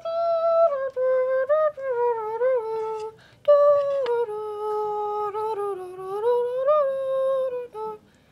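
A high voice humming a wandering tune in held notes that slide up and down, with a short break about three seconds in.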